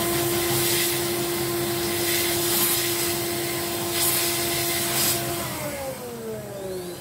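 Vacuum cleaner running with a steady whine, sucking dust from an electric motor, sounding rough. About five seconds in it is switched off and its pitch falls as the motor winds down.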